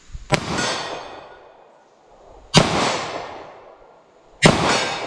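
Three shots from a 2-inch Taurus 905 snub-nose revolver in 9mm firing Federal Hydra-Shok 124-grain hollow points, spaced about two seconds apart. Each shot is a sharp crack that trails off in a long echo.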